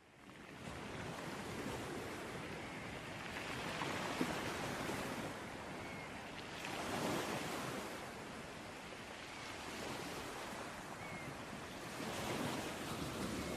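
Sea waves breaking and washing onto a beach, swelling and ebbing every few seconds, fading in over the first second.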